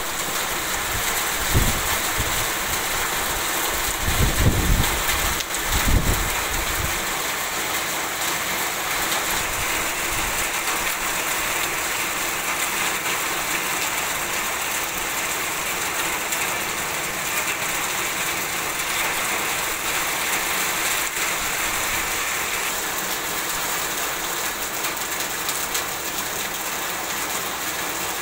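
Heavy rain falling steadily, a dense even hiss of rain on standing water, ground and foliage. A few short low rumbles come in during the first six seconds.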